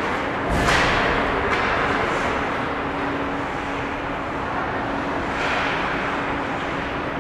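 Ice hockey rink ambience during play: a general noise of skates and distant play under a steady hum, with a sharp knock about half a second in.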